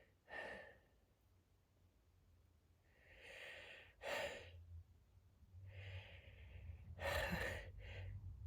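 Audible breathing of someone whose sneeze is stuck: about half a dozen breaths and catching gasps, with no sneeze coming out.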